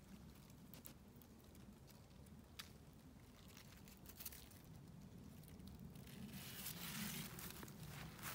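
Faint rustling of spruce branches and needles being handled, with scattered small clicks; the rustle grows louder over the last couple of seconds.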